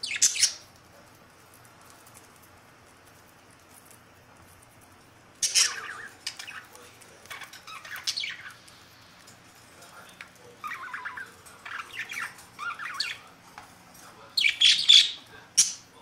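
Budgerigars chirping and squawking in short bursts of chatter, with the loudest squawks near the end.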